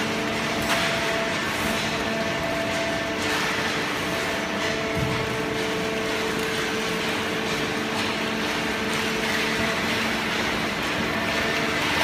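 Fully automatic horizontal hydraulic waste-paper baler and its feed conveyor running: a steady machine drone with several held steady tones over a rushing noise.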